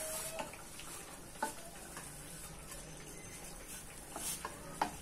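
Faint steady sizzle of pav buns toasting in butter on a hot flat tawa as they are pressed down by hand, with a few light clicks.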